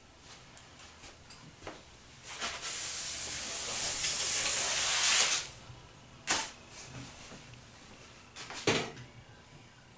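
Hair spray hissing in one steady burst of about three seconds, followed by two short knocks.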